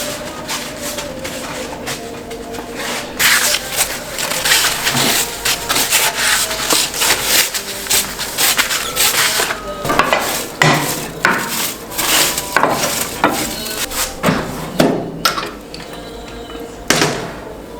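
Irregular scraping and rubbing strokes of food preparation, with some knocks against a wooden surface. The strokes start about three seconds in and ease off near the end.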